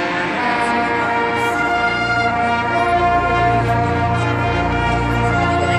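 Marching band brass playing long held chords, with a deep low note swelling in underneath from about two seconds in.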